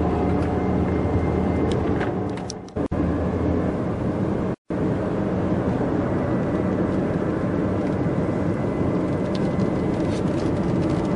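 Steady engine and road noise inside the cabin of a moving Peugeot car. The sound dips briefly about three seconds in and cuts out completely for a moment about four and a half seconds in.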